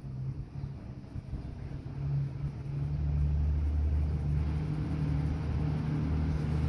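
Faint scratching of a neon colored pencil shading on paper, over a steady low rumble and hum that grows louder about three seconds in.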